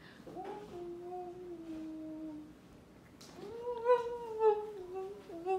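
English cream golden retriever whining in two long, drawn-out cries, a protest at being pinned in rough play. The second cry, starting about halfway through, is higher and louder.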